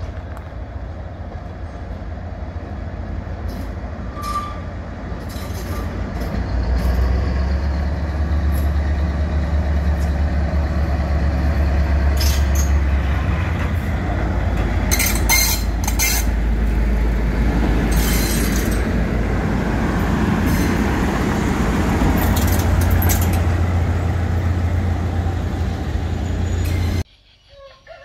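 Railway locomotive running close by: a steady low engine rumble that grows louder about a quarter of the way in, with several short sharp noises around the middle. The sound cuts off suddenly near the end.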